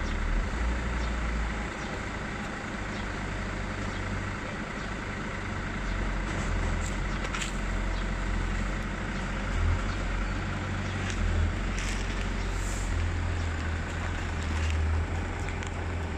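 Steady low rumble and hiss of background noise, with a few faint rustles as a T-shirt is handled and smoothed out on a plastic sheet.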